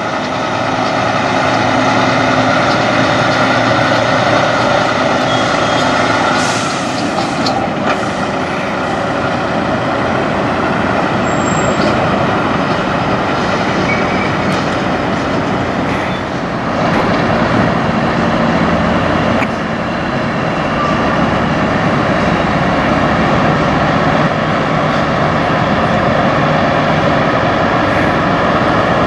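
Semi-truck diesel engines running as tractor-trailers pull slowly through the lot, with a brief hiss of air about seven seconds in.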